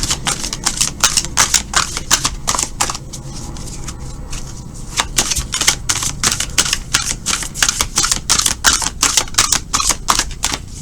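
A deck of tarot cards being shuffled by hand: quick runs of rapid card clicks, pausing for a couple of seconds about three seconds in.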